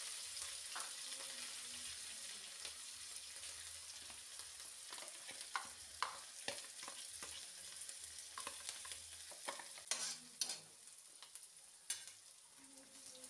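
Chopped green chilli, ginger and garlic frying in oil in a kadai, a faint steady sizzle, with scattered clicks of stirring in the pan, quieter near the end.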